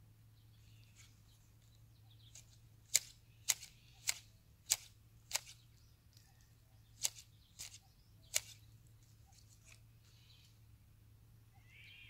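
Hand pruning shears snipping pine shoots: five crisp cuts about half a second apart, then three more after a short pause.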